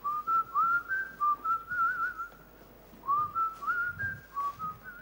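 A person whistling a tune: a single clear high tone sliding between notes, in two phrases with a short break in the middle.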